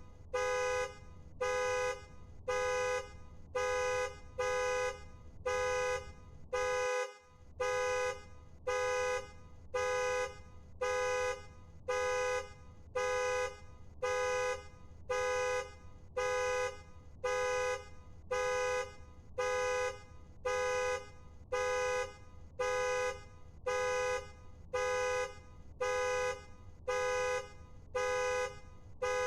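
Car alarm blaring the car's own two-tone horn in steady, evenly repeated honks, a little more than one per second, each lasting under a second, over a low steady hum.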